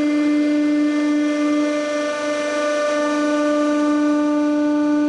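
Hydraulic press running with a steady, unbroken droning tone as its ram is driven down.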